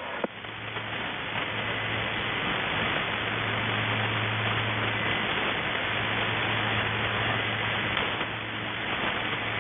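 Shortwave radio static on the 3243 kHz channel of the Russian military station 'The Goose': a steady hiss with a low, steady hum underneath, in a pause between spoken message groups.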